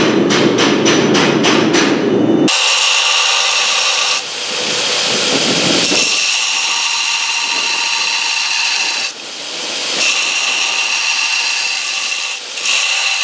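Hammer blows on an anvil, about three a second over a steady low drone, stop abruptly about two and a half seconds in. A belt grinder then runs with a small forged steel knife blade held against the belt, a steady grinding with a high whine. The grinding eases briefly a couple of times as the pressure on the blade changes.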